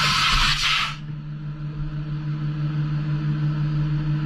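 CNC turn-mill lathe with its spindle at rest: a loud hiss cuts off suddenly about a second in, leaving a steady low machine hum.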